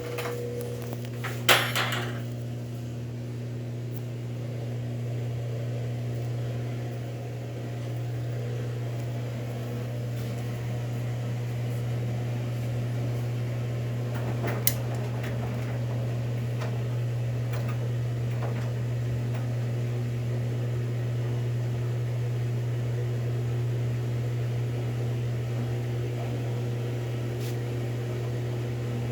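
Whirlpool washing machine running through its wash with a steady low hum. There is a sharp knock about a second and a half in and a smaller click near the middle.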